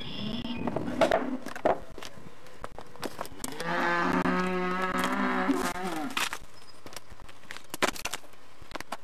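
A cow mooing once, a long call of about two and a half seconds in the middle. A few sharp knocks come before and after it.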